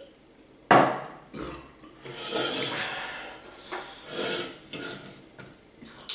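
A drinking glass and aluminium soda cans handled on a wooden table: a loud knock about a second in, then several scraping, rubbing noises. Right at the end comes a sharp crack as a can's ring-pull starts to open.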